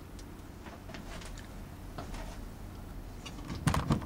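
Faint scattered clicks and taps of a Grendel P12 pistol frame and its small parts being handled during reassembly, with a short cluster of louder knocks near the end.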